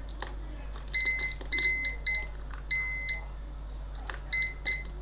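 Digital multimeter in diode-test mode beeping as its probes touch the FET legs on the amplifier board: about six high, steady beeps of varying length, the longest about half a second. The short beeps come from the amplifier's capacitors discharging through the meter, not from a shorted FET.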